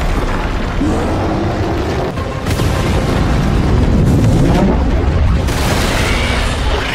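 Film sound effects: deep booms and rumbling from a blast and its cloud of debris, with dramatic score underneath.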